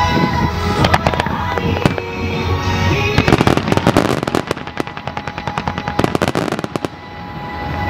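Fireworks display: shells bursting and a fast run of crackling reports, densest from about three seconds in, with music playing alongside and the bangs thinning out near the end.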